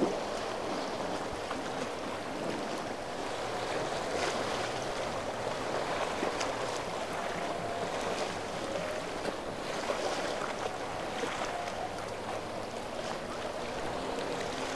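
Water rushing and splashing in the wake of a large San Lorenzo motor yacht under way through rough inlet waves, a steady churning wash with wind.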